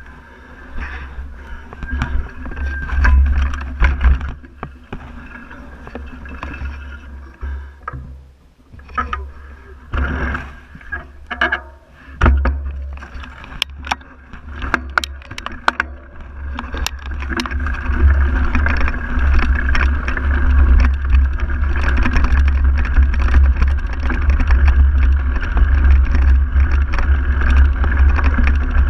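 Wind buffeting the microphone of a camera on a mountain bike riding a grassy dirt trail, with the bike rattling and knocking over bumps. The clatter is busiest about halfway through, and the wind noise grows louder and steadier over the last third.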